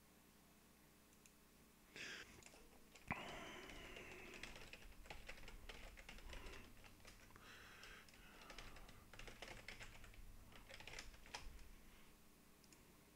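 Faint typing on a computer keyboard: a quick run of key clicks that starts about two seconds in and stops near the end, with one sharper click about three seconds in.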